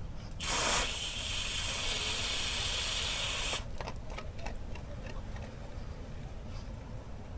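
Water hissing through a plastic two-way garden hose splitter as one of its valve levers is opened: the rush starts about half a second in, holds steady for about three seconds and cuts off suddenly when the valve is shut. A few faint plastic clicks from handling the splitter follow.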